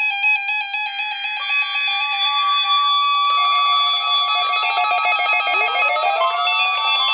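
Several NOAA Weather Radio receivers sounding their alert tones at once for the weekly test: steady electronic tones that join in one after another, with a fast-pulsing beep coming in about three seconds in and a tone sweeping upward a little later.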